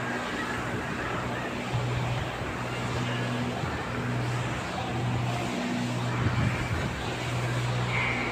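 Steady noisy background with a low hum that keeps breaking off and coming back every second or so, like machinery running.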